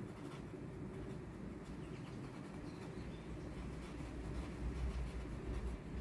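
Paintbrush scrubbing oil paint onto dry canvas: faint, scratchy strokes over a low room hum.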